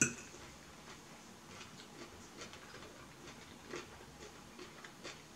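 A metal fork strikes a plate with one sharp clink at the start. It is followed by faint, scattered light clicks and ticks of the fork working the food on the plate.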